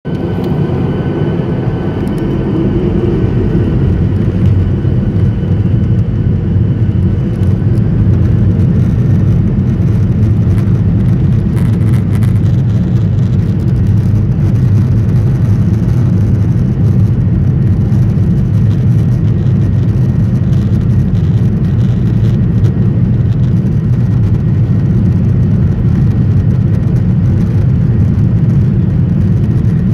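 Jet airliner heard from inside the cabin over the wing while taxiing: a loud, steady, low engine and cabin rumble that grows louder over the first few seconds, then holds level.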